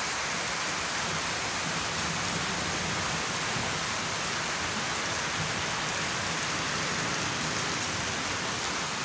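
Heavy rain falling steadily on leaves and paving: a dense, even hiss with no let-up.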